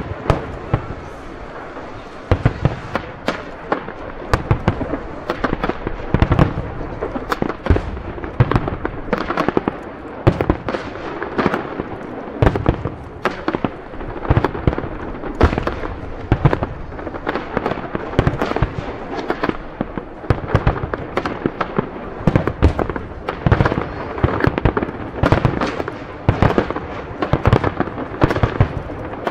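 Aerial fireworks shells bursting one after another, a dense run of deep booms every second or so with crackling and lighter bangs between.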